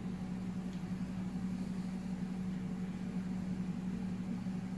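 Steady low mechanical hum with one constant tone: a room's heating or air-conditioning system running.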